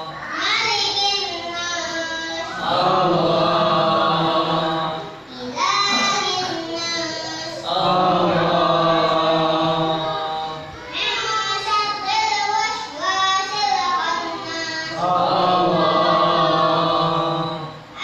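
A boy reciting the Qur'an aloud in a melodic chant, with long held notes that turn and glide. He breaks off twice to breathe, about five and about eleven seconds in.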